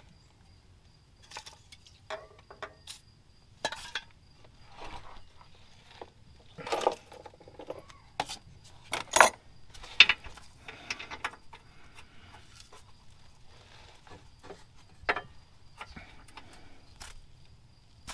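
Irregular metal clinks and clanks of hand tools and bolts being handled during work on a car's rear differential, with a few louder knocks about halfway through.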